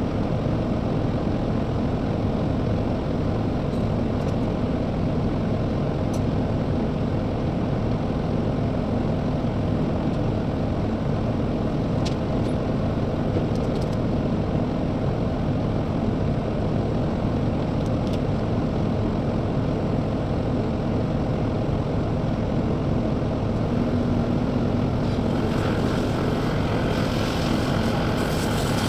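CAT skid steer loader's diesel engine running steadily, a continuous low engine drone. A higher hiss joins near the end.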